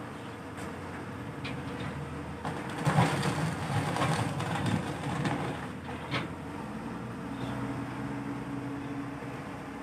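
Caterpillar wheel loader's diesel engine running, with about four seconds of louder clattering near the middle as oil palm fruit bunches tumble from the raised bucket into a truck. The engine then runs on at a steadier tone.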